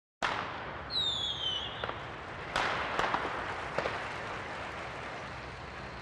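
Fireworks: a sudden burst, a falling whistle about a second in, then scattered pops and crackling over a fading hiss.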